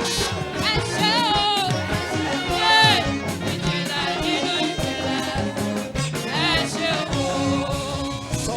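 Upbeat praise music with singing over a band and a steady beat.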